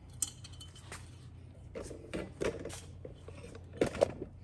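Metal parts of a Honda TRX90 engine's top end being worked together by hand during reassembly: rubbing and scraping with scattered clicks, then two sharp knocks near the end.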